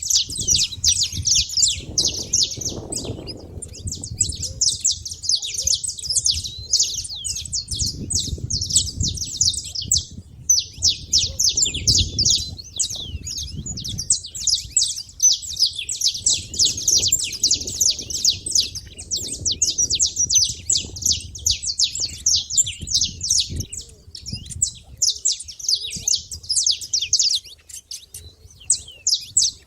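Saffron finch chirping: a dense, near-continuous stream of rapid high chirps, with brief pauses about 4 s and 10 s in and again near the end. A low rumble runs underneath.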